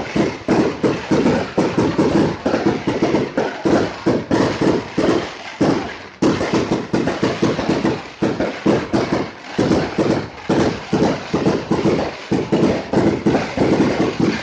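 A multi-shot fireworks cake firing a rapid string of shots, about four a second, with a brief break about six seconds in.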